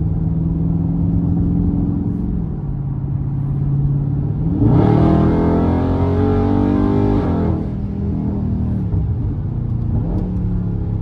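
Dodge Scat Pack's 392 HEMI V8 cruising, then opened up about four and a half seconds in. Its note climbs loudly for about three seconds under hard acceleration, then eases back to a steady cruise.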